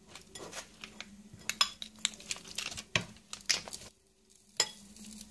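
Irregular clicks, clinks and light knocks of a utensil and hands against a plate while sandwiches are assembled, the sharpest about a second and a half, three, three and a half and four and a half seconds in.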